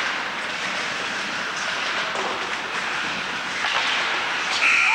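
Steady, noisy ice hockey rink sound with skates scraping on the ice and crowd murmur. Near the end an arena buzzer starts, a steady buzzing tone.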